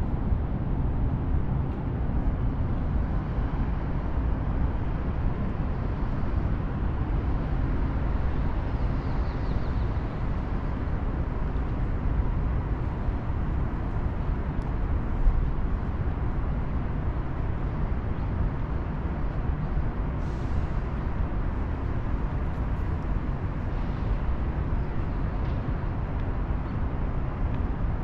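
Steady city street noise, mostly a low traffic rumble, with a few faint brief higher sounds along the way.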